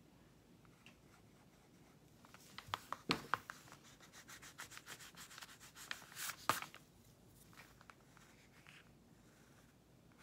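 Pencil scratching back and forth on paper in a run of quick strokes, starting about two seconds in and stopping after about six and a half seconds, loudest near its start and end.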